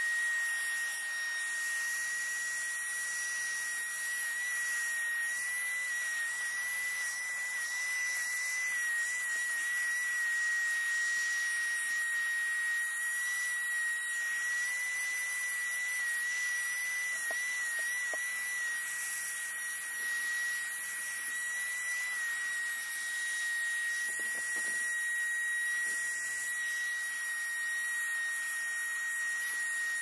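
Ryobi P713 18-volt cordless handheld vacuum running steadily as its nozzle is worked over a carpeted car floor mat: a high motor whine over an airy hiss, the pitch wavering slightly now and then.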